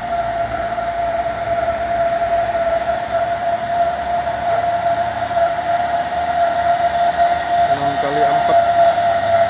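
Heavily loaded Mitsubishi Fuso truck labouring uphill, with a steady high whine from the drivetrain over the engine, growing louder as it comes closer.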